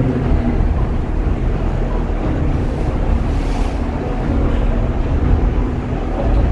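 Loud, steady low rumbling rush of noise with no pitch or rhythm.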